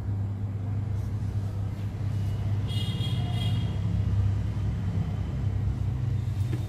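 Hot air rework station blowing steadily on a phone CPU at about 300 °C, a constant low hum with a rush of air, reflowing the solder balls under the chip.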